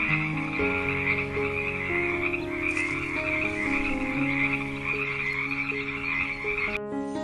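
A toad calling in a continuous high trill, over soft background music; the trill cuts off suddenly near the end.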